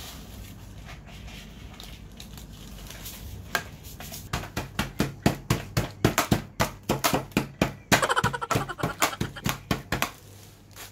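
Wooden rolling pin pounding Oreo cookies inside a plastic bag on a wooden counter, crushing them into crumbs: a rapid run of sharp knocks, several a second, starting a few seconds in and pausing near the end.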